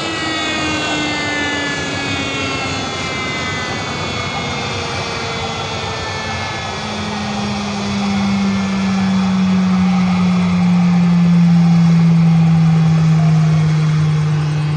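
Airliner's engines with falling pitch. Several whining tones glide downward at first; then a strong low hum comes in about six seconds in and slowly drops in pitch as it grows louder, peaking a few seconds later.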